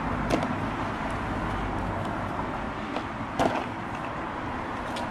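Fingers picking and scratching at packing tape on a small cardboard box, giving a few short sharp crackles, the loudest about three and a half seconds in. A steady background rumble of outdoor noise runs underneath.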